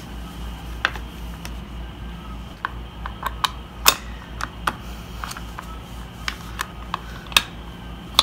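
Irregular light clicks and taps of a hex key and screw against a chair's plastic side cover and metal recline bracket as the screw is fitted, over a low steady hum.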